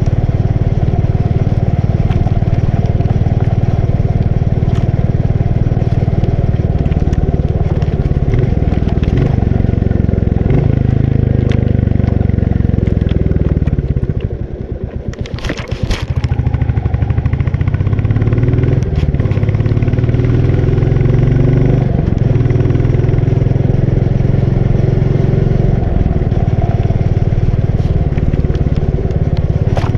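Royal Enfield Bullet 350's single-cylinder engine running under way, its pitch rising and falling several times as the rider works the throttle. About halfway through it drops off to a slow, separate thumping, then picks up and climbs again.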